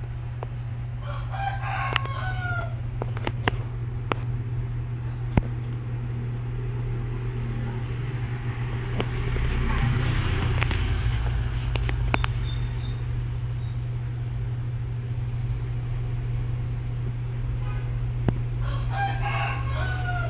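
A rooster crows twice, about a second in and again near the end, over a steady low hum. A few sharp clicks sound in between.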